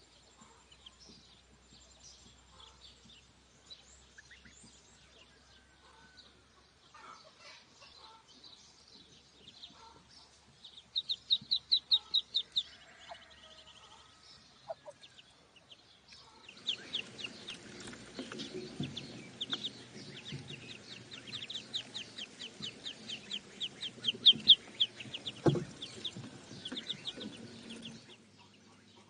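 Ducklings peeping. Scattered high peeps at first, then a quick loud run of peeps about eleven seconds in. From about seventeen seconds a steady chorus of many peeps begins, with lower sounds underneath.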